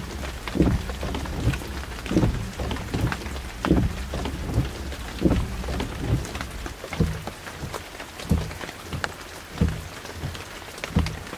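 Rain falling steadily, with irregular low thuds of large drops landing close by, about one or two a second. A low rumble runs underneath and fades about seven seconds in.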